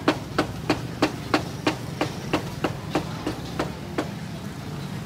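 A knife chopping on a wooden chopping block in an even rhythm, about three strikes a second, stopping about four seconds in. A steady low hum runs underneath.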